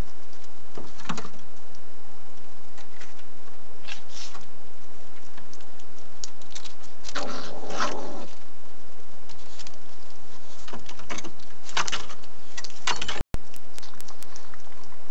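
Steady hiss with scattered short scratches and scuffles from a pine marten and a badger moving and feeding on a wooden feeding table. The longest, fullest scuffle comes about halfway through, as the badger rears up against the table. The sound drops out for an instant near the end.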